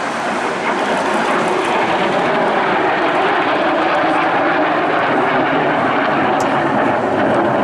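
Jet noise from a MiG-17's VK-1F turbojet in display flight: a broad rushing sound that swells about a second in and then holds steady.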